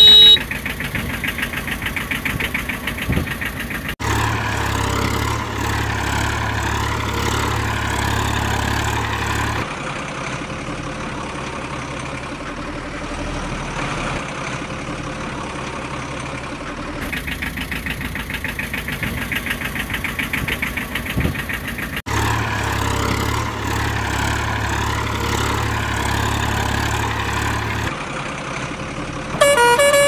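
Truck engine sound effect running and idling, repeating as a loop with abrupt cuts, a low rumble in parts of each pass. A truck horn honks briefly at the very start and again near the end.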